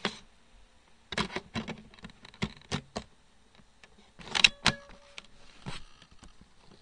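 Clicks and plastic clatter of a DVD being handled and loaded into a computer's disc drive tray, a string of separate knocks with the loudest about four and a half seconds in.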